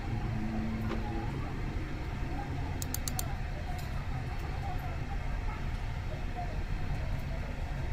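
Steady low room hum and hiss from a microphone in a quiet room, with a quick run of faint, sharp clicks about three seconds in.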